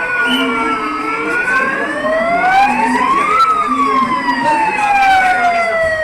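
Emergency-vehicle siren wailing: its pitch falls, climbs slowly to a peak about three and a half seconds in, then falls slowly again.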